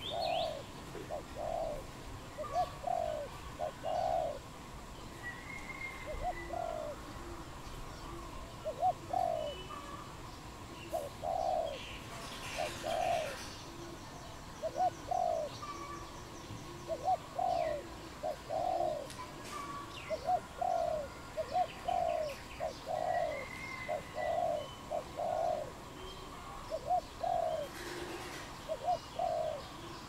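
A dove cooing: short low coos repeated all through, often two or three close together. Faint high chirps of other small birds come in now and then.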